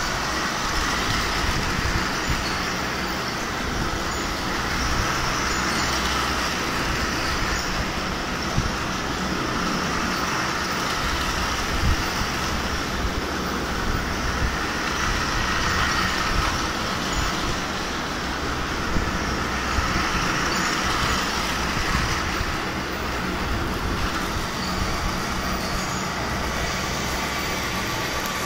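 Several battery-powered toy trains running on plastic track: a steady whir of small motors and plastic wheels with a constant light clatter of clicks over the track joints.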